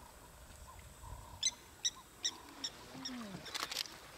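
A bird calls four times in a quick, even series of short, sharp notes. A short low falling sound follows, then a few faint splashes or knocks near the end.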